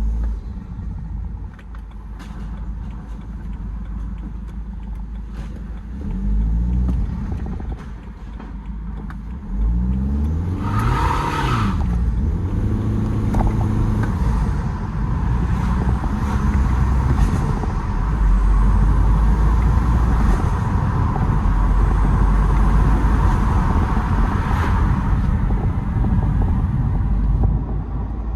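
BMW E92 320d's N47 four-cylinder turbodiesel, fitted with an open air intake, being revved and driven: its note rises and falls a few times, with a short loud rushing noise about eleven seconds in. From about a quarter of the way through it runs loud and steady with an airy hiss over the rumble.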